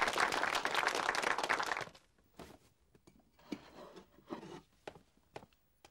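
A crowd applauding, cut off abruptly about two seconds in; after that only a few faint scattered knocks and rustles.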